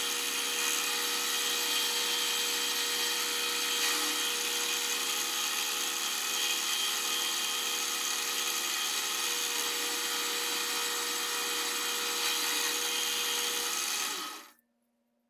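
Manual milling machine running an end mill through metal, a steady motor whine mixed with cutting noise at an even level; it winds down and stops about fourteen seconds in.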